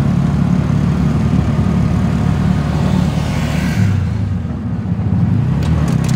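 Bajaj Maxima Z three-wheeler's single-cylinder engine running steadily on the move, with a low drone. Its note shifts lower about four seconds in.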